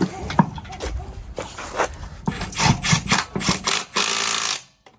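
Scattered knocks and clatter of hand tools and parts, then about four seconds in a power tool runs in a short burst of under a second.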